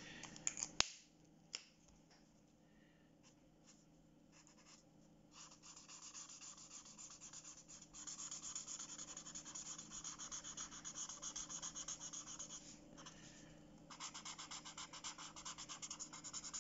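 Felt-tip marker colouring on paper: quick back-and-forth scratchy strokes that start softly about five seconds in and grow stronger, pausing briefly about thirteen seconds in. A few sharp clicks come in the first second and a half.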